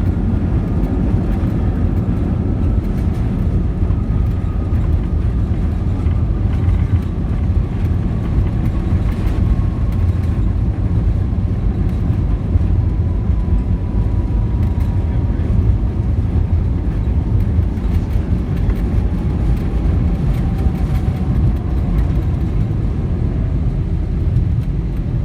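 Cabin noise inside an Airbus A319 rolling on the runway after touchdown: a steady low rumble, with the whine of its CFM56 engines falling slowly in pitch as they spool down.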